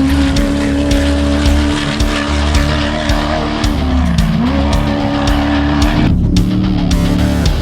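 Off-road race vehicle's engine running hard, its pitch dipping and climbing back a few times with the throttle, over background music with a steady beat.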